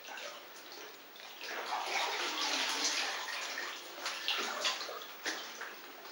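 Water splashing and sloshing in a flooded well shaft as a diver moves at the surface. It swells about one and a half seconds in, with a few sharp splashes near the end.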